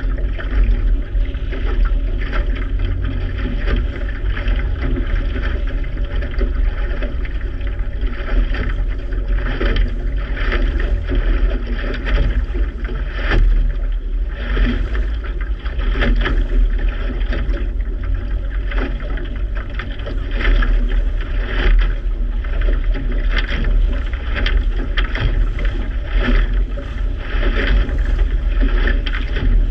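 Water sloshing and splashing irregularly against a waterproof action camera at the water's surface, over a steady low rumble.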